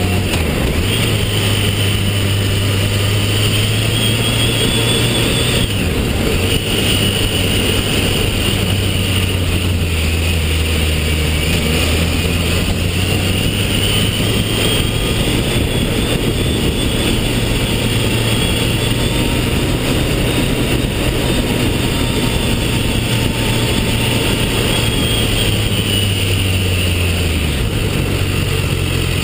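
Motorcycle engine running steadily at cruising speed with heavy wind noise on the microphone; near the end the engine note drops as the bike slows.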